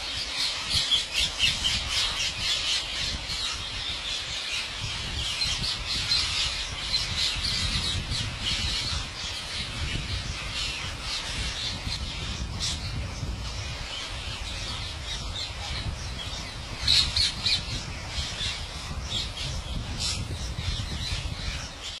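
A large flock of rose-ringed parakeets calling, with many shrill squawks overlapping without a break. There are louder bursts about a second in and again around seventeen seconds in, over a low rumble.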